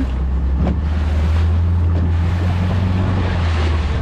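A boat's engine running with a steady low drone, under wind buffeting the microphone and the rush of water.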